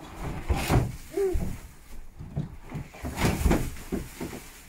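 Wood shavings being dumped out of a bin onto the floor: a run of irregular rustling scrapes and knocks.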